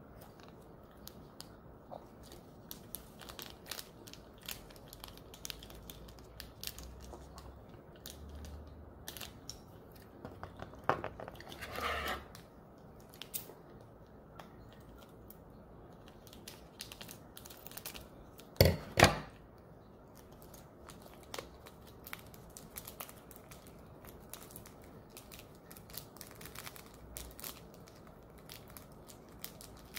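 Thin plastic food packets being handled and torn open, crinkling with many small clicks and rustles, and two louder crackles partway through.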